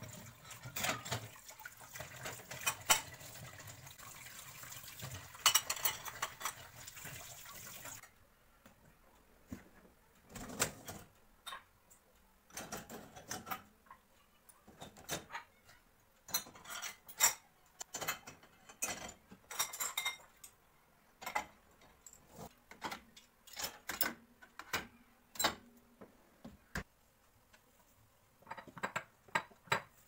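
Tap water running into a kitchen sink while dishes are rinsed, with clinks of crockery. The water stops suddenly and is followed by a long series of separate clinks and knocks of glasses and dishes being set into a dishwasher's wire racks.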